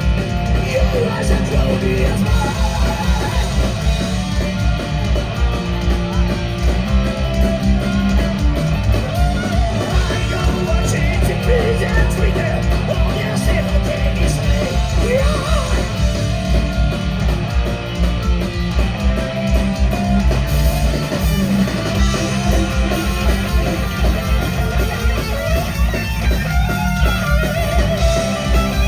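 Loud live rock band playing an instrumental passage: distorted electric guitars strumming over fast, steady kick drum and bass.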